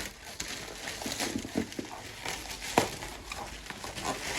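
Package being opened by hand: packaging rustling and crinkling with scattered small clicks and scrapes, and one sharper click a little before three seconds in.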